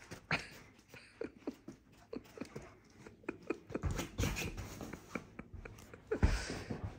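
A Great Dane playing and fussing at a cat: short dog grunts and huffs mixed with scattered clicks and knocks of its movement, with a louder bump and rustle about six seconds in.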